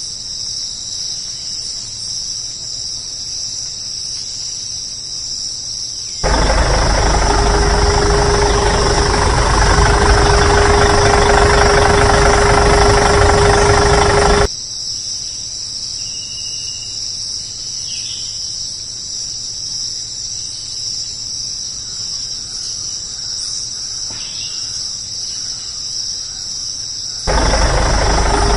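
Steady chirping of crickets, cut off about six seconds in by a louder, steady tractor-engine idling sound for roughly eight seconds, after which the crickets return. The engine sound comes back abruptly near the end.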